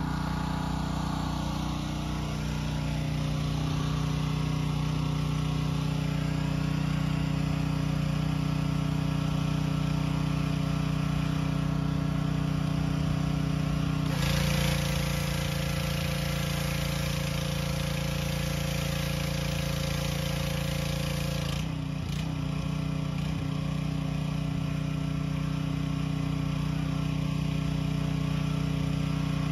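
Small petrol pressure-washer engine running steadily. About halfway through, a loud hiss of spraying water joins it for some seven seconds and then stops.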